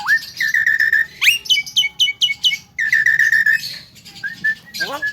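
Javan myna whistling a varied series of clear notes. It starts with a dipping whistle, then gives a long steady whistle and a rising note that runs into a quick string of short repeated notes. Another steady whistle follows, and short arching notes come near the end.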